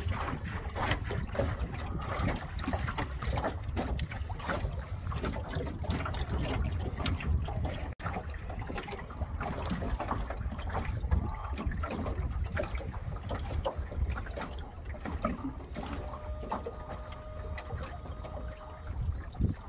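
Small aluminium boat under way across open water: a steady low rumble of wind buffeting the microphone, with water splashing against the hull.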